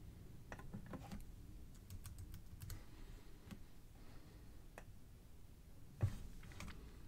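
Faint, irregular clicks and taps of a computer mouse and keyboard, with a louder knock about six seconds in.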